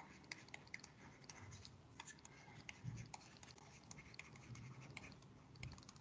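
Near silence with faint, scattered ticks and scratches of a stylus writing on a tablet, and a soft low thump about halfway through.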